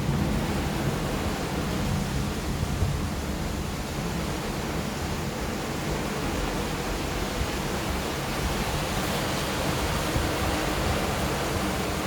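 Heavy rain falling in a steady, even hiss during a thunderstorm, with the tail of a low thunder rumble fading out in the first couple of seconds.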